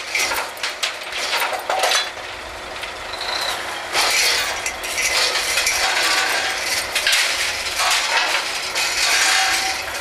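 Drilling rig floor during a drill-pipe connection: metal-on-metal clanking and clinking of pipe-handling gear over steady rig machinery noise, which grows louder about four seconds in.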